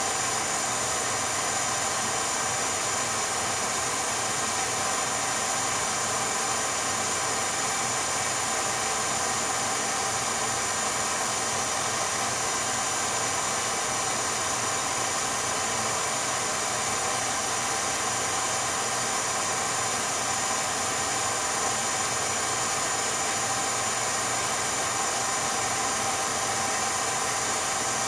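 Steady hiss and hum with several constant high whining tones, unchanging throughout; no sound from the filmed scene itself, as the 8mm home movie is silent.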